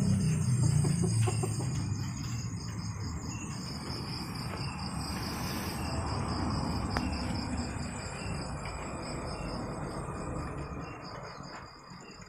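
Crickets chirping in a steady, fast pulsing trill. A low rumble fades out over the first few seconds.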